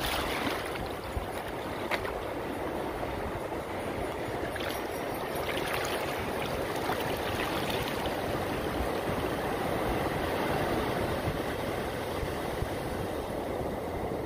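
Ocean surf washing in over sand at the water's edge, a steady noise of breaking waves and foam.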